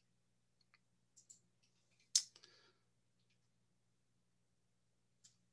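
A few faint, scattered clicks. The sharpest comes about two seconds in with a short soft rustle after it, and there is a faint steady electrical hum underneath.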